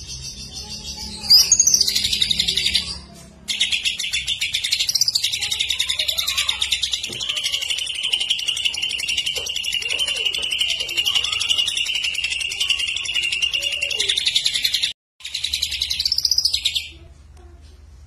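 Caged male green leafbird (cucak ijo) singing: a short loud phrase, then a long unbroken rapid trill of about eleven seconds in the lovebird-style 'tembak' rapid fire it has learned as mimicry. The trill breaks off suddenly and ends with one short phrase that rises and falls.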